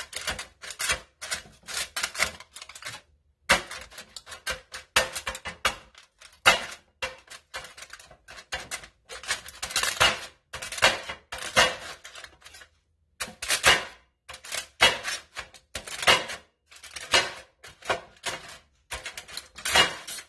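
A wooden skewer jabbing holes through aluminium foil in a foil-lined metal baking pan: quick, irregular runs of crinkly taps and ticks, with short pauses about three seconds in and again about two-thirds of the way through.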